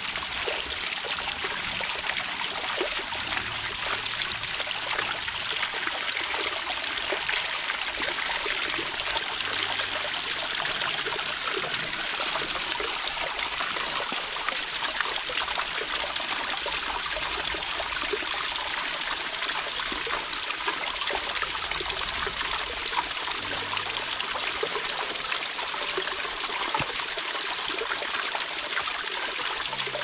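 Water trickling and burbling steadily in a small forest stream.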